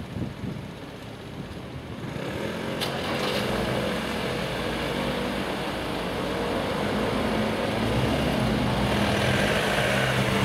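Road traffic engines, a van and motorcycles among them, running and pulling away over a level crossing as its barriers lift, getting gradually louder. A single sharp click about three seconds in.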